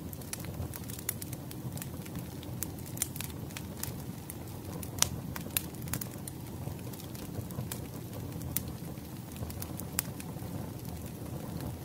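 Firewood burning in a metal fire pit, crackling with scattered sharp pops, a few louder pops about five and ten seconds in.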